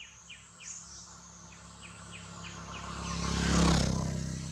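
A vehicle passing on the road: a low hum and rush that swell to a peak about three and a half seconds in and then fade. Before it come short high chirps, falling in pitch, about three a second.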